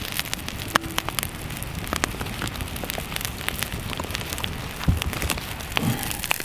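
A small camp pot boiling hard over a campfire, a dense bubbling patter, with the fire crackling and popping throughout. A couple of dull knocks near the end as the pot is handled.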